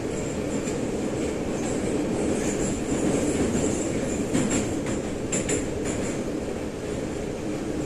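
Metro train of the 81-717/714 'numbered' type running at speed, heard from inside the car: a steady rumble with a thin high wheel squeal, and a few clacks of the wheels over rail joints about four to six seconds in.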